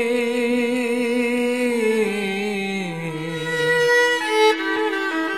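Devotional Hindu bhajan (kirtan) music. A long held melodic note wavers with vibrato, slides down about two seconds in, then moves through a few shorter notes.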